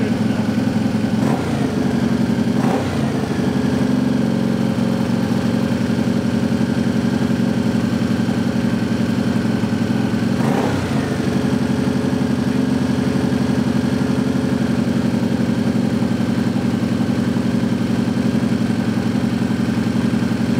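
Honda CX650E's liquid-cooled V-twin engine running steadily on its first start after a rebuild, with three brief blips of the throttle: about a second in, near three seconds, and near eleven seconds.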